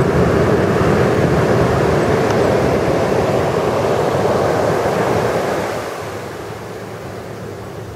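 Ocean surf breaking and washing up the sand, with wind buffeting the microphone. The sound drops noticeably about five and a half seconds in.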